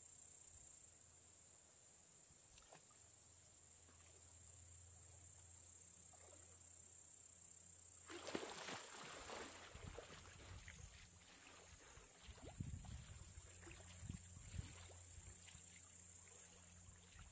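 Faint outdoor ambience: a steady high hiss and a low hum, with a burst of rustling about halfway through, followed by scattered light taps and clicks.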